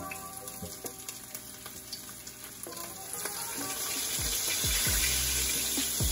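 Floured whole aholehole (Hawaiian flagtail) sizzling as they fry in hot oil in a skillet. The sizzle grows louder about halfway through as more fish are laid into the pan with tongs.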